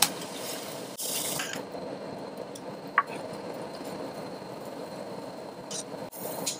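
Cooking liquid bubbling and simmering in a cast-iron pot as it comes back to the boil, with a wooden spoon knocking and scraping against the pot in the first second or so, and a few small pops and clicks later.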